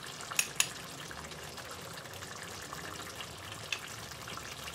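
A pot of tomato stew simmering on the stove: a faint, steady bubbling and sizzling, with a few sharp pops, two of them about half a second in and another near the end.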